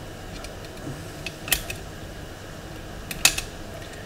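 Sharp metallic clicks of curtain picks working the levers inside a 5-lever mortice lock, two louder clicks about a second and a half apart, each followed by fainter ones.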